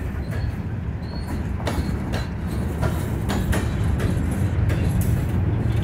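Freight train boxcars rolling past at close range: a steady low rumble of steel wheels on rail, with irregular sharp clicks.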